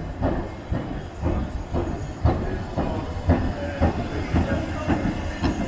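A 1913 four-wheeled Be 2/2 vintage tram rolling past on street tracks, its wheels rumbling and knocking over the rails several times a second.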